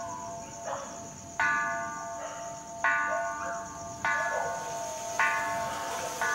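A metal bell struck five times, each strike ringing out with several tones and fading, the strikes coming a little faster each time, from about one and a half seconds apart to about one second. A steady high-pitched insect trill runs underneath.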